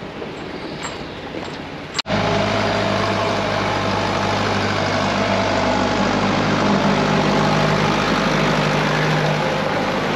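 Faint rustling and clicks for about two seconds, then a Steyr tractor's diesel engine idling steadily at an even pitch.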